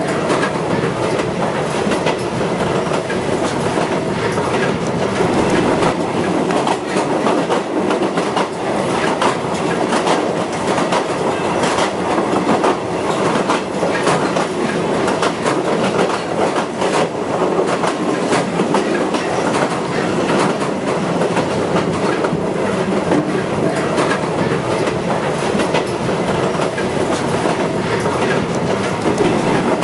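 Passenger train running, heard from inside a carriage with open windows: a steady rumble of wheels on track with frequent clicks and rattles.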